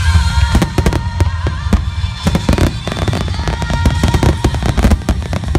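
Fireworks going off in rapid succession: many sharp cracks and bangs over a continuous deep rumble. Music with held notes plays alongside.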